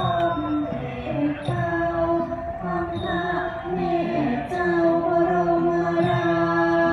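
Music with a woman singing a slow melody in long held notes.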